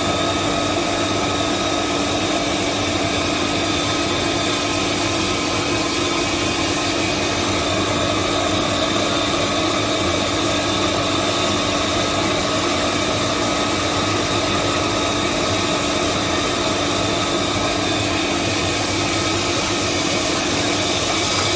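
Vacuum homogenizing emulsifying mixer running with its homogenizer and stirrer motors switched on: a steady, even machine hum with a constant whine over a hiss of noise.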